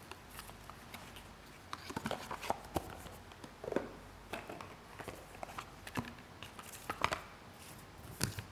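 Paper slips rustling and crackling as they are unfolded and handled by hand, in scattered short, irregular crackles and light taps.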